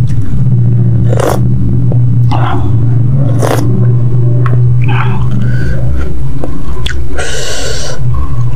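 Close-miked chewing of spicy instant noodles, with short wet mouth clicks now and then and a longer wet burst about seven seconds in, over a steady low hum.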